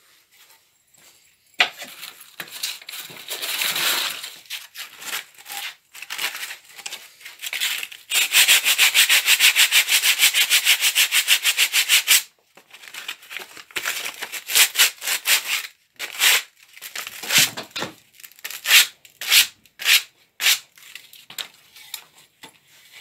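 Wooden board being sanded by hand with a sheet of sandpaper: rasping back-and-forth strokes, irregular at first. Near the middle comes a steady run of rapid, loud strokes lasting about four seconds, then shorter, separate strokes.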